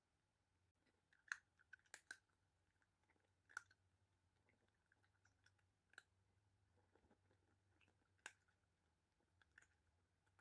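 A tabby cat crunching dry kibble: faint, scattered crunches and clicks a second or two apart.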